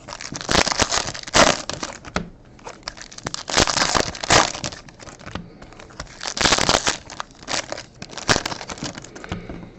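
Foil trading-card pack wrappers being torn open and crinkled, in irregular bursts of crackling.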